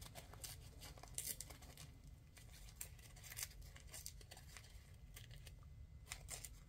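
Thin stamped paper being torn by hand: faint, scattered small rips and crinkles.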